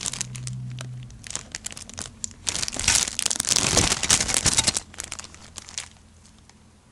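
Clear plastic bag holding plastic model kit sprues crinkling and crackling as it is handled. The crackling is loudest in the middle and dies away near the end.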